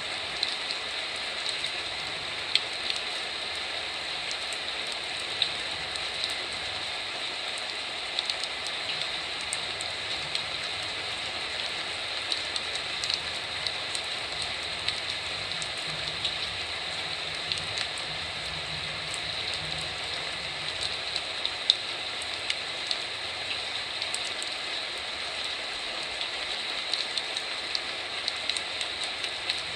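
Heavy typhoon rain recorded at a window: a steady hiss of rainfall with many separate drops striking close by.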